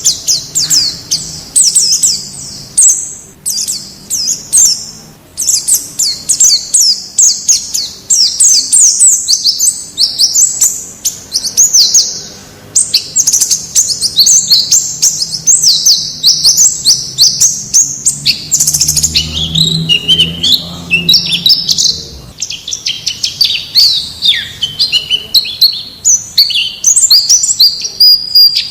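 White-eyes (pleci) singing: a continuous, rapid, high-pitched twittering of short chirps and trills, with a run of somewhat lower notes in the middle part.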